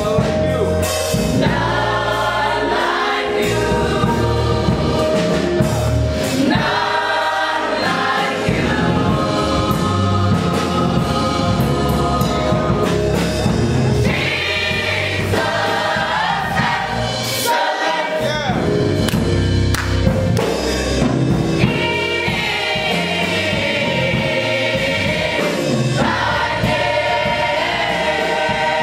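A gospel choir of mostly women's voices singing a song together, loud and unbroken.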